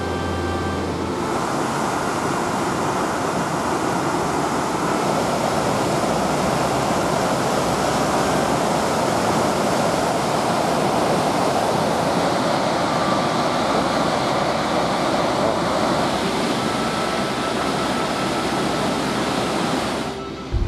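Steady rushing roar of a large waterfall, a dense even noise with no let-up; faint music dies away in about the first second.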